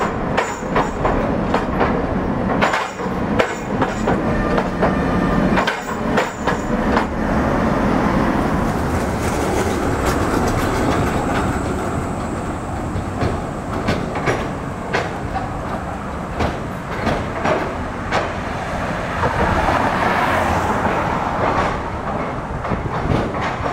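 Tram wheels clattering over a temporary surface-mounted 'Californian' crossover laid on top of the rails: a run of sharp clacks and knocks as an articulated tram rolls across. Then a steadier rumble as a Škoda 15T tram comes up, with clanks again near the end as it reaches the crossover.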